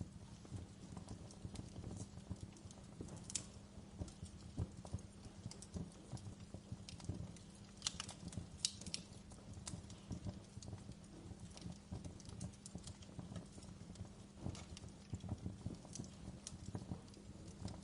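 Wood fire crackling in a fireplace: irregular sharp pops and snaps over a steady low rumble, with a cluster of louder pops about eight to nine seconds in.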